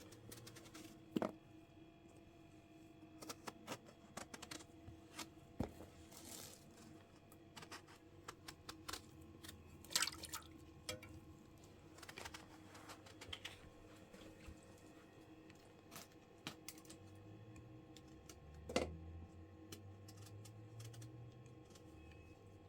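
Scattered light clicks and taps at irregular intervals, a few sharper ones standing out, over a faint steady hum.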